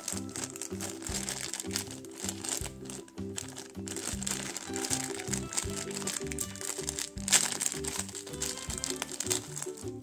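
Thin clear plastic bag crinkling and crackling as hands pull it open and take out a small plastic figurine, with one sharper, louder crackle about seven seconds in. Background music with a steady beat plays throughout.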